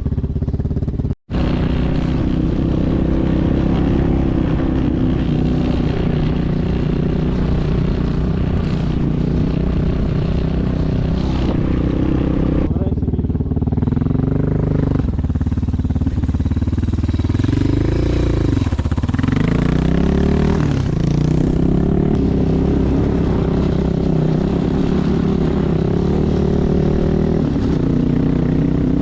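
A motor vehicle's engine running as it drives, its pitch dipping and rising several times partway through as the revs change. The sound cuts out for a moment about a second in.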